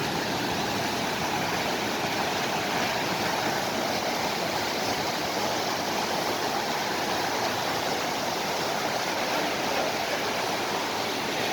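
Steady rushing of flowing water, an even wash of noise without pause.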